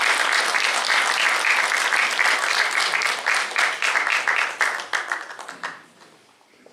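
Hall audience applauding, a dense patter of many hands clapping that thins out and dies away about five to six seconds in.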